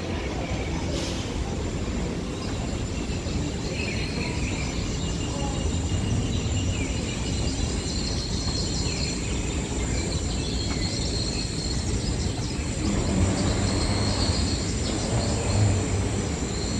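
Airport walkway tunnel ambience: a steady low rumble from moving walkways and passing travellers, with faint bird chirps from the tunnel's nature soundscape.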